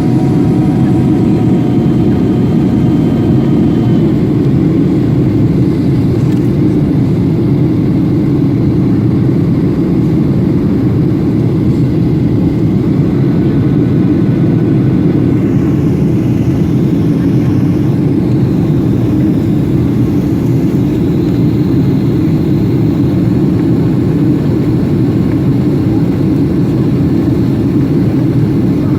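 Boeing 737-800 airliner in flight: a steady low roar of engines and airflow. Faint higher steady tones stop about four seconds in.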